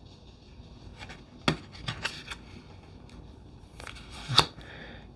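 Tarot cards being handled and laid out: a few short clicks and light scrapes of card stock, with a sharper tap about four seconds in.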